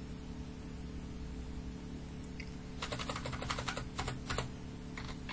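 Computer keyboard keys pressed in a quick run of separate clicks starting about three seconds in, as text is deleted and retyped. A steady low electrical hum runs underneath.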